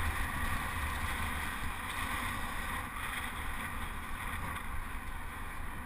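Steady wind noise buffeting a helmet-mounted camera's microphone at racing speed on a bicycle, a low rumble with no distinct events.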